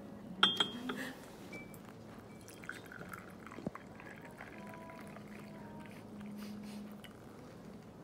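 Red berry tea poured from a glass Hario tea server into a ceramic mug, a steady stream of liquid filling the cup. A sharp clink comes about half a second in, as the server is lifted.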